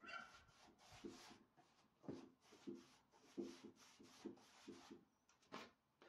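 Paintbrush stroking stain onto burned wooden boards: a faint series of short rubbing brush strokes, about two a second.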